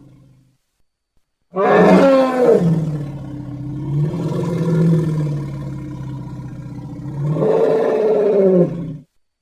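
Giant-monster roar sound effect from the Godzilla films. A single long, pitched roar starts about a second and a half in, is loudest at its onset, sags in the middle and swells again near the end before cutting off sharply.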